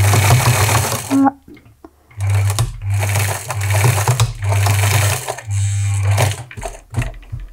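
Electric sewing machine running as it stitches a fabric seam, in stop-start runs: one run of about a second, a pause, then several runs with short breaks between them from about two seconds in. A few light clicks near the end.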